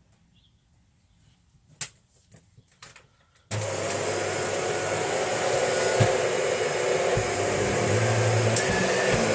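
A few clicks, then about three and a half seconds in a Shark NV801UK upright vacuum cleaner switches on abruptly and runs steadily with a loud motor hum.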